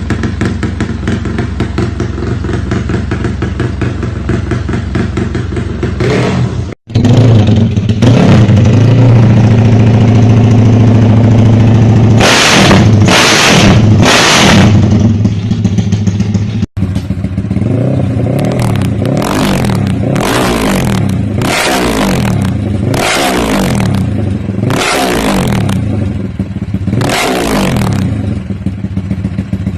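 Yamaha Y15ZR (MX King) 150cc single-cylinder four-stroke engine idling, then revved in short throttle blips that rise and fall in pitch: three near the middle and a run of about six near the end. The sound breaks off abruptly twice, where separate recordings are joined.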